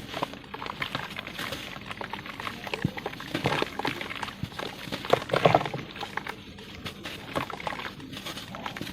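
Lumps of pure cement being crumbled, a dense crackling and crunching with many small clicks, loudest about five seconds in.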